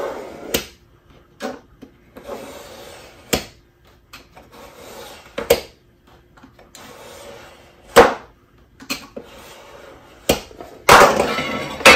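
A utility knife scoring a sheet of Kydex along a metal speed square. There are about five scraping strokes of roughly a second each, each marked by a sharp click, and a louder burst of scraping near the end.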